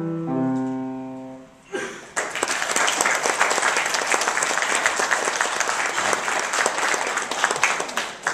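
The final notes of a piece on a grand piano ring out and fade away, and about two seconds in an audience breaks into steady applause.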